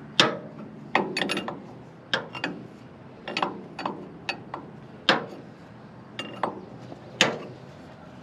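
Sharp metallic clicks and clinks at irregular intervals, about fifteen in all, from a wrench working an old drain cock loose on a 1927 White truck.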